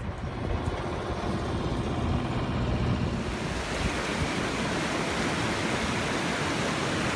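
Rushing white-water mountain stream, a steady hiss that fills out and grows louder about three seconds in, over a low rumble of wind buffeting the microphone.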